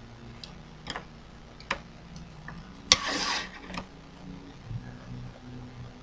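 A few scattered light clicks and taps and one short rustle about three seconds in, over a low steady hum: handling and movement at a drawing desk as the artist shifts about and settles in to draw.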